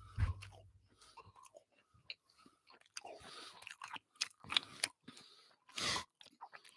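Cheetos being chewed close to a microphone: a few loud crunches right at the start, then softer chewing and mouth noises.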